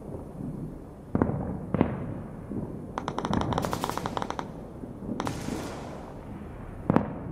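Battle sound effects of gunfire: a few scattered single shots and a rapid machine-gun burst lasting about a second and a half, starting about three seconds in, over a steady background rumble.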